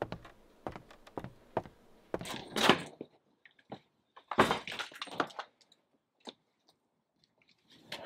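A front door being opened and closed, with footsteps: a run of light knocks and clunks, with two louder, longer rustling bursts about two and four and a half seconds in.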